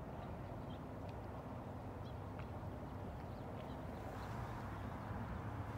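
Quiet open-air river ambience: a steady low rumble with a few faint, scattered bird chirps.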